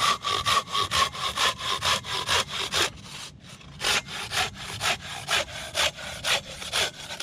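Silky BigBoy folding hand saw cutting through a split firewood log, its blade rasping back and forth through the wood in quick, even strokes of about four a second. A short pause comes about three seconds in, then the strokes resume a little slower.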